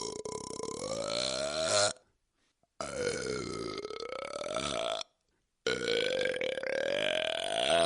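Long, drawn-out human burps, one after another: one ending about two seconds in, then two more of two to three seconds each, with short silent gaps between them. Each burp holds a steady, slowly wavering pitch.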